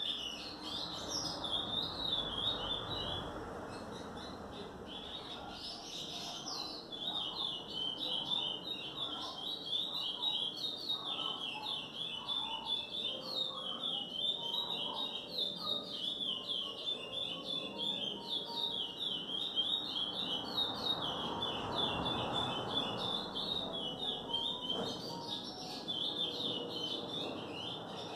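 A caged songbird, a male pardo, singing a long, fast, almost unbroken run of high chirping notes.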